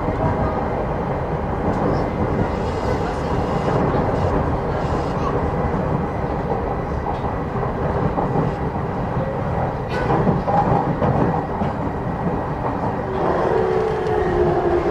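Interior running noise of a JR 209 series 2100-subseries electric train: a steady rumble of wheels on rail with one sharp click about ten seconds in. Near the end a low whine comes in and falls slightly in pitch as the train slows for its next stop.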